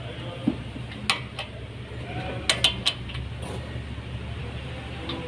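A handful of sharp metal clicks and clinks from a wrench working the 17 mm brake caliper bolts, two close pairs among them, over a steady low hum.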